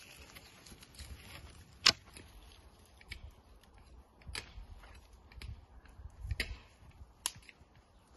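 A dry birch branch snapped by hand, with one loud sharp crack about two seconds in, then several lighter cracks of twigs being broken and gathered up.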